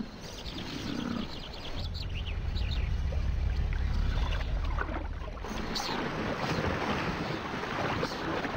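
Cape buffalo herd splashing and trampling in the shallows of a muddy waterhole, with many small splashes. A deep low rumble runs under it from about two seconds in to about five seconds in, then a broader rush of splashing water.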